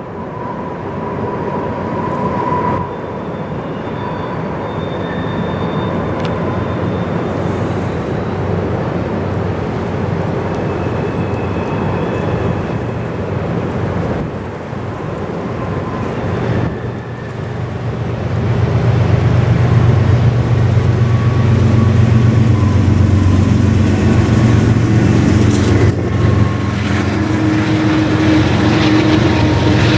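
Westbound CN freight train's diesel locomotives, a GE ES44DC and a GE C40-8, approaching. A steady rumble grows, and about 18 seconds in the engines' low drone becomes loud and holds.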